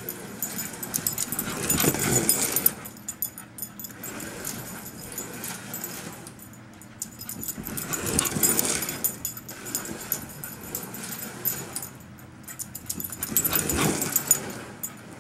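Carrera Digital 132 electric slot cars whirring past on the plastic track three times, each pass swelling up and dying away over about two seconds, about six seconds apart.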